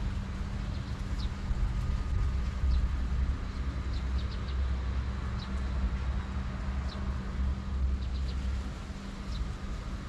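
A steady low rumble with a faint hum underneath, and short high bird chirps, singly or in quick twos and threes, every second or so.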